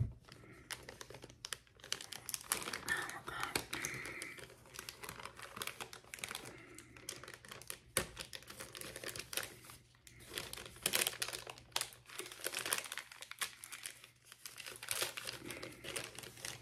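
Plastic instrument packaging crinkling and rustling as it is handled, with scattered small clicks and one sharper click about eight seconds in.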